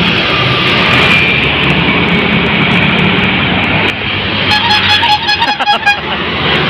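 A bus passes with engine and road noise, then about two-thirds of the way through its multi-tone telolet horn plays a quick run of short notes for about a second and a half.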